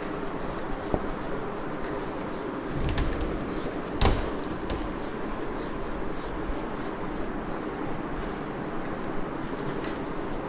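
Whiteboard eraser wiping marker writing off a whiteboard: steady rubbing strokes, with a few knocks, the loudest about four seconds in.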